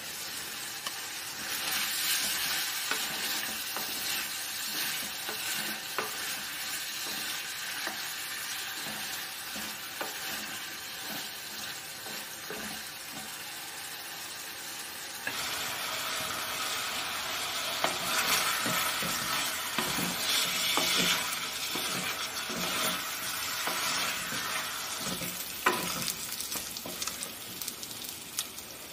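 Chicken pieces sizzling as they fry in a pan, with a spatula scraping and clicking against the pan as they are stirred. The sizzle steps up louder about halfway through.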